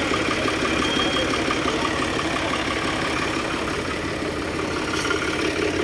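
Tractor diesel engines running steadily at idle, a low even drone.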